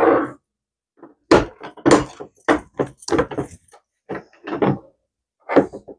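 A string of short, irregular knocks and clunks from a black metal three-tier tray stand and its resin trays, as the tiers are pushed against a snapped-on locking bracket that stops them swivelling.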